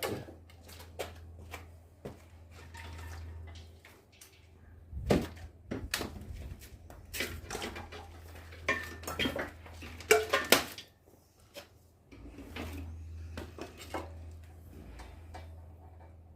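Metal equipment being handled in a workshop: a string of irregular clinks, clanks and knocks, loudest in a quick cluster about ten seconds in, over a low steady hum.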